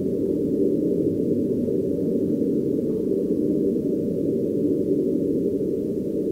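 A steady, low rumbling drone with no high sounds in it, holding an even level throughout.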